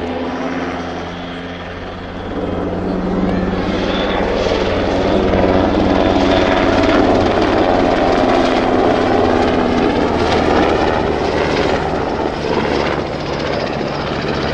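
NHIndustries NH90 helicopter flying a display pass overhead, its rotor and twin turbine engines running. The sound swells about two seconds in, stays loud through the middle and eases slightly near the end.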